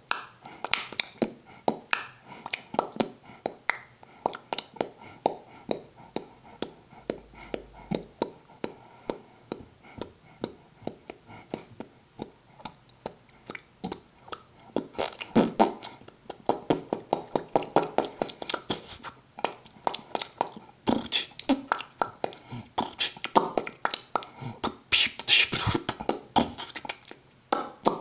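A person beatboxing: a fast, steady run of mouth-made clicks, pops and snare-like hits, with fuller, louder vocal passages mixed in over the second half.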